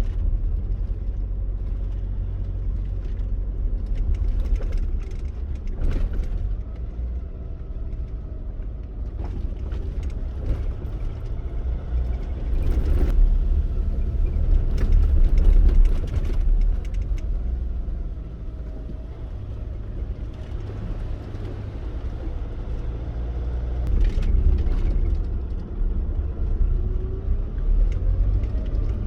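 A four-wheel-drive vehicle driving slowly over a rough dirt track: a steady low engine and tyre rumble, with scattered knocks and rattles as it goes over bumps, and the engine note rising and falling a few times.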